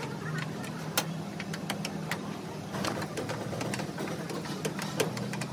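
A motor running steadily with a low hum, with irregular sharp clicks and taps over it.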